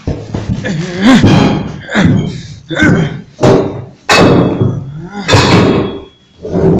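Loud slams or thuds, about one a second and somewhat irregular, mixed with a person's wordless cries or grunts.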